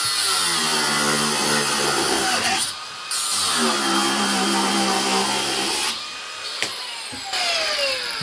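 Cordless angle grinder cutting through a steel threaded rod, its motor whining steadily in two stretches with a short break about three seconds in. After about six seconds the trigger is released and the disc winds down with a falling whine.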